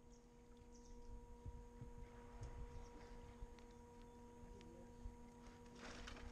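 Near silence with a faint steady hum of a few even pure tones, over a low rumble and scattered faint ticks. A brief rush of noise comes near the end.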